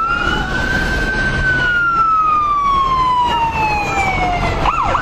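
Police siren wailing: one long wail that rises, holds, then slowly falls, followed near the end by a quick up-and-down yelp. A steady low rumble runs underneath.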